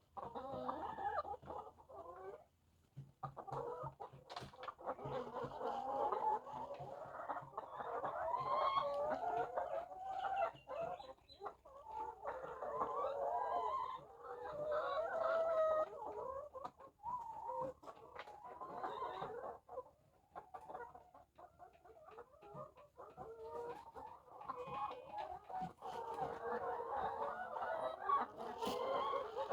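A flock of layer hens clucking and calling, many birds overlapping in a continuous chorus, with scattered small clicks and brief lulls.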